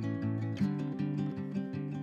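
Background music: acoustic guitar playing picked chords in a steady rhythm, changing chord about half a second in.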